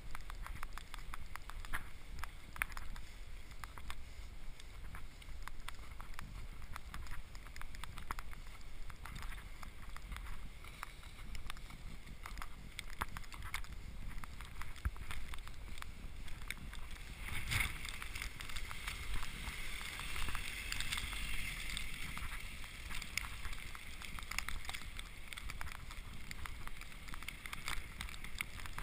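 Footsteps crunching in fresh snow, a steady run of short irregular crunches, with wind rumbling on the microphone and one louder knock a little past the middle.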